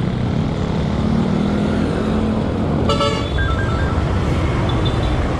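A vehicle horn gives one short toot about halfway through, over steady traffic rumble, followed at once by a few short high beeps.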